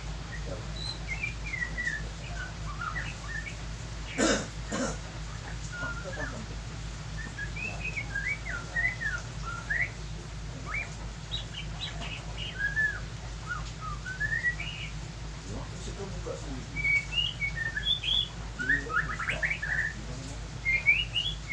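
Small birds chirping and twittering in many short rising and falling calls, over a steady low hum. A brief knock about four seconds in.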